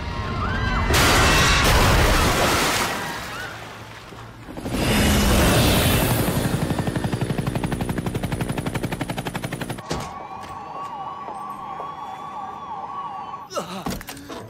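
Car-chase film sound mix: two loud bursts of crashing noise, then a fast even rattle, then a police siren wailing for a few seconds, cut off by sharp hits near the end.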